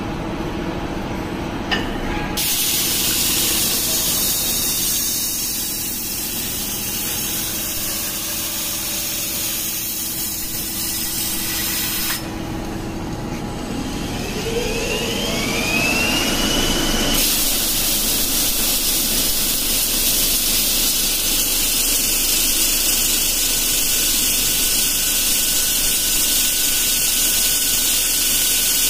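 Abrasive belt grinder running with its belt hissing against a spinning steel bottle, as a CNC polishing machine works the bottle's shaped profile. The noise shifts abruptly a few times, and a whine glides upward about halfway through.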